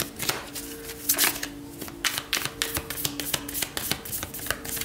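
Tarot cards being shuffled by hand: a run of quick, irregular card slaps and flicks, over faint steady background music.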